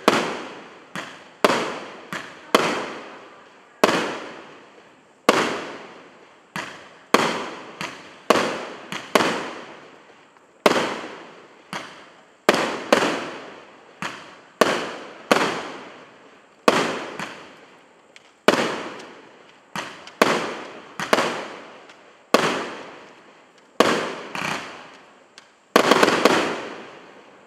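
A 25-shot 1.2-inch fireworks cake firing its shots in quick succession: a steady string of sharp bangs, about one every half second to second, each fading away over a second or so. The loudest, densest bangs come near the end as the last shots go off.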